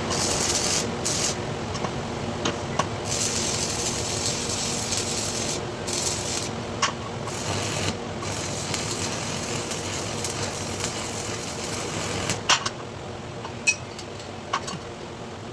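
Electric arc welding: a crackling, frying hiss that starts and stops in short runs as the arc is struck and broken, over a steady hum. A few sharp clicks come near the end.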